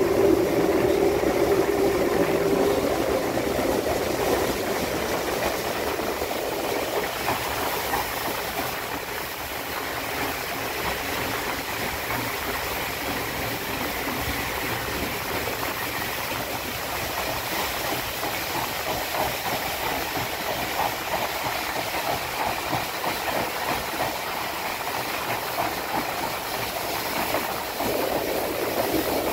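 Heritage steam train running through a tunnel, heard from an open carriage window: a steady rumble and rush of wheels and steam, loudest in the first few seconds and swelling again near the end.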